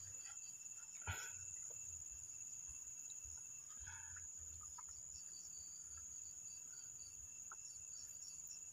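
Night insects chirring in one steady, high-pitched drone, with a single sharp click about a second in.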